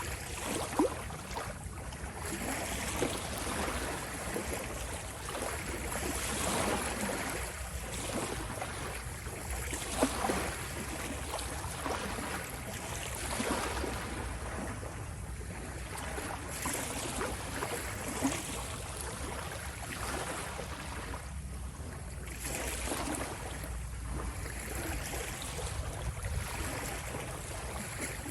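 Sea waves washing and splashing in a continuous rush that swells and eases every few seconds, with a few sharper splashes about a second in, at about three seconds and at about ten seconds.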